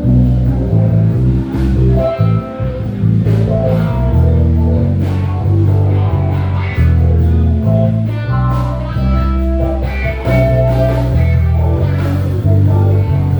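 Live band playing: an electric guitar plays melodic lines over a walking bass guitar and drums.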